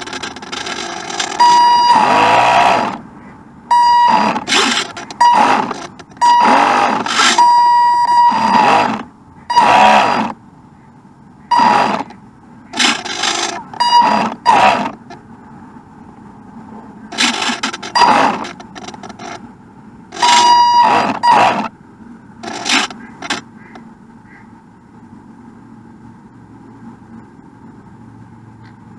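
Radio-controlled boat's motor running in repeated short bursts of throttle, many of them with a steady whine, for most of the stretch; near the end the bursts stop and only a faint background hum remains.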